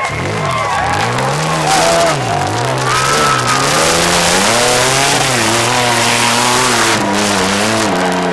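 Rock bouncer buggy's engine revving up and down again and again under hard load as it climbs a steep dirt hill, with the rushing hiss of tires spinning in loose dirt.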